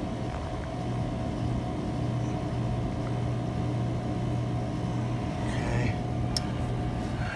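Steady low mechanical hum of running machinery, with a few steady higher tones over it and a short click about six and a half seconds in.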